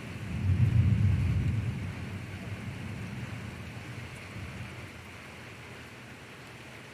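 A roll of thunder that swells about half a second in and rumbles away over the next few seconds, over steady rain.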